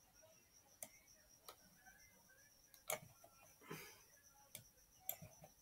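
Near silence with about half a dozen faint, irregularly spaced computer mouse clicks, the loudest about three seconds in.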